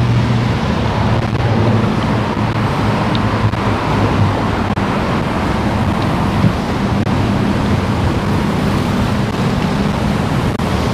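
Steady road traffic noise: a continuous wash of tyre and engine sound with a low drone underneath.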